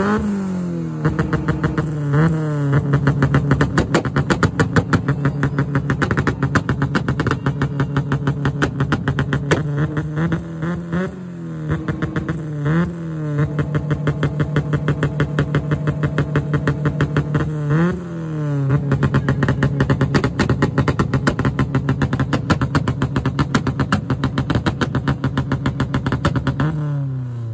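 Modified Honda Civic hatchback's engine held at high revs on a two-step launch limiter, its exhaust crackling and popping rapidly. The revs rise briefly several times and drop away near the end.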